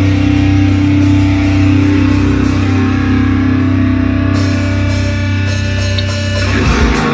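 Live heavy rock band with electric guitar, playing a long held chord that changes about six and a half seconds in.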